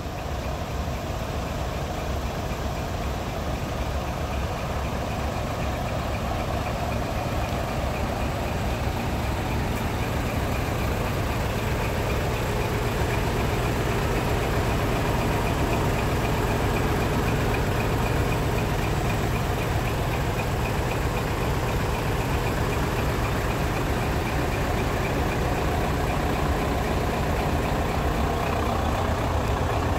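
Heavy truck's diesel engine running steadily at low revs, a continuous low throb from the exhaust that grows gradually louder.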